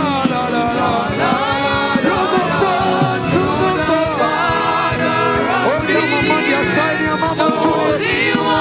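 Live gospel worship music: a voice sings in long gliding phrases over a band with a drum beat.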